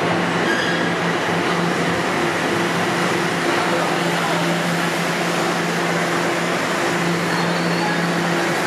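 A Toronto TTC subway train giving off a steady rushing noise with a low, constant hum.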